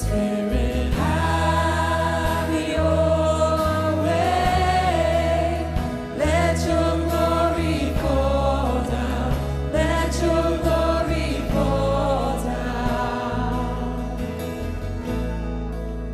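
Live contemporary worship song: several voices singing together over a band with acoustic guitar, bass and keyboard. The music grows quieter over the last few seconds.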